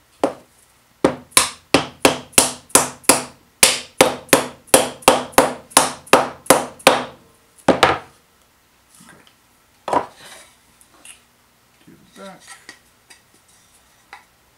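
A mallet knocking on the wooden parts of a dovetailed drawer, about twenty quick taps at roughly three a second, with two more single knocks after them. Faint handling of the wood follows.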